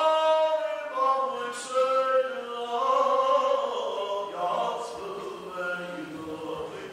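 A man chanting a liturgical prayer, drawing out sustained sung notes that glide between pitches.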